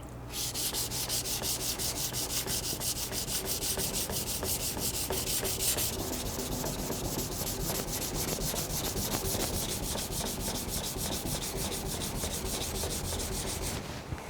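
Kitchen knife blade being ground flat on a coarse 220 grit whetstone: a steady, rapid run of back-and-forth gritty rubbing strokes, several a second, as steel is removed to thin the blade.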